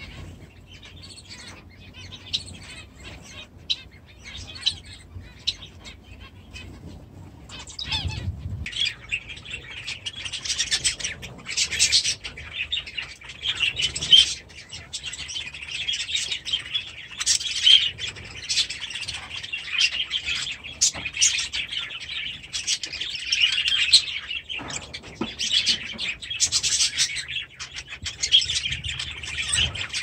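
Many small aviary birds chirping and calling together in a dense chatter of short, high calls. It grows busier and louder about eight seconds in.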